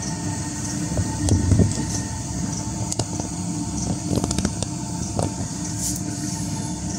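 Steady mechanical rumble of a diesel space heater running, with a constant low hum, mixed with the soft burning of a remote-canister gas camping stove turned down low. A few light clicks come and go.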